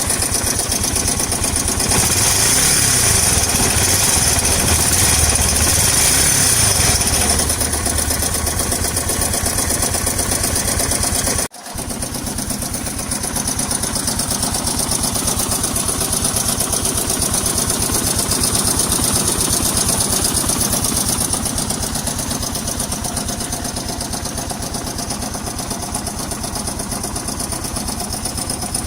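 Yamaha SR 125's air-cooled single-cylinder four-stroke engine running with a knock, which the owner suspects is the connecting rod. It runs louder for a few seconds near the start, cuts out for an instant about a third of the way in, then carries on at idle.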